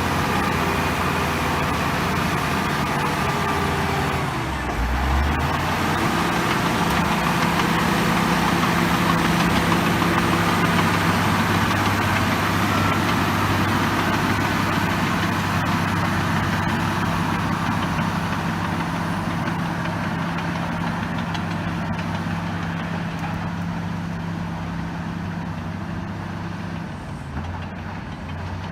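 LiuGong B160C bulldozer's diesel engine running. It revs up about five seconds in, holds steady, and settles back down near the end.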